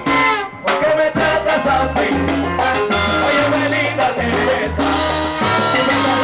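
Salsa band playing live, with a male singer over congas, timbales, trombone and keyboard and a pulsing bass line.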